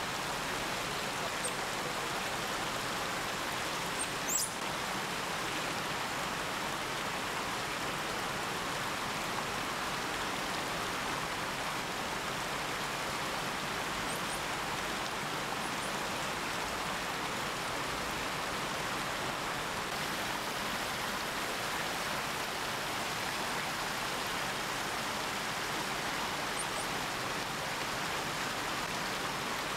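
Steady, even hiss with no pitch or rhythm, with a few faint, brief high chirps; the clearest comes about four seconds in.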